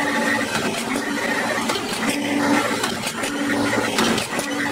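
Automatic wire mesh welding machine running through its cycle. A hum switches on for about half a second roughly once a second, with clicking and clatter in between.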